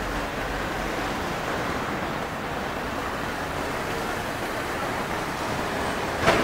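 Steady outdoor city-street background noise, an even wash like distant traffic, with one sharp knock near the end.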